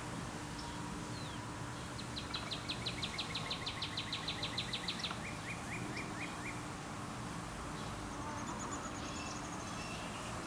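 A songbird singing: a fast trill of high notes, about seven a second for some three seconds, running into a few slower, lower notes; a thin high call follows near the end. Steady outdoor background hiss underneath.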